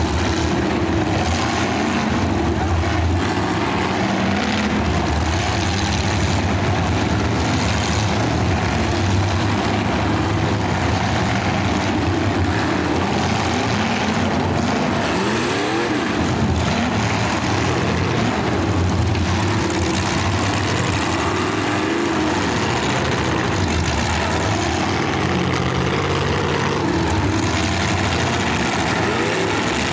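Engines of several full-size demolition derby cars running and revving together, with occasional bangs of cars hitting each other.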